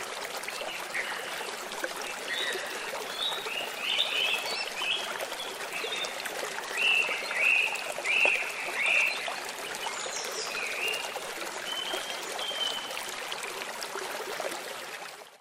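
Shallow stream flowing over stones, a steady rush of water, with short high chirping calls scattered over it, loudest a little past the middle.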